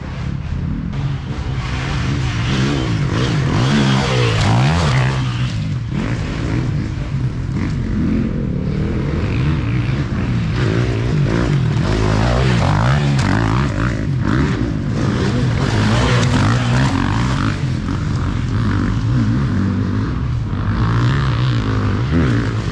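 Yamaha YZ250F four-stroke single-cylinder enduro bike engine under load, its revs rising and falling continually as the throttle is worked through the test.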